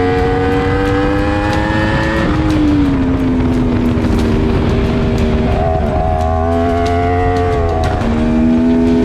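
Sport motorcycle engine at high revs on a racetrack. The pitch climbs, drops about two seconds in, holds, then climbs again from about five and a half seconds. It drops once more about eight seconds in before rising again.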